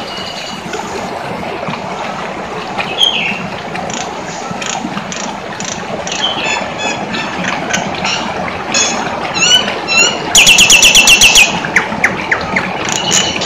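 Nias hill myna in song: scattered short whistles and squawks over a steady background noise. About ten seconds in comes a fast, loud run of about a dozen repeated notes, then more short calls.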